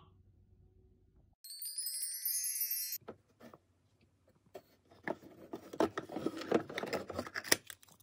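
A short, high, glittering chime effect, about a second and a half long, followed by clicking and rustling as a small advent calendar drawer is pulled open and a little snow globe is taken out of it.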